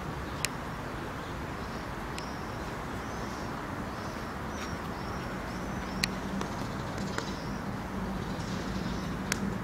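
Outdoor city ambience: a steady rumble of distant traffic with small birds chirping, a few sharp clicks, and a low steady hum joining about halfway through.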